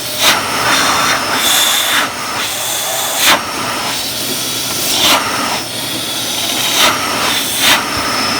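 Vacuum cleaner running steadily with a loud hissing rush of air, broken by about six short, sharp surges of noise.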